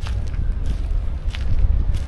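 Wind buffeting the microphone with a steady low rumble, and footsteps of a person walking, about one step every two-thirds of a second.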